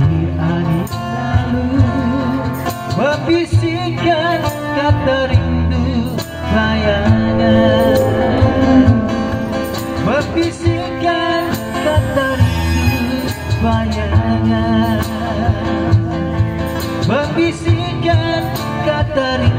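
Live acoustic band music: a male singer sings a slow rock ballad melody with vibrato through a PA, backed by strummed acoustic guitars.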